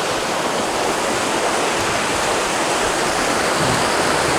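Steady rush of flowing water from a nearby stream or waterfall, an even hiss with no breaks.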